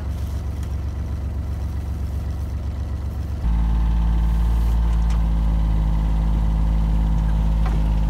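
Farm utility buggy's engine running steadily, heard from inside its cab. About three and a half seconds in it turns abruptly louder and deeper and holds there as the buggy drives along, with a few light clicks near the end.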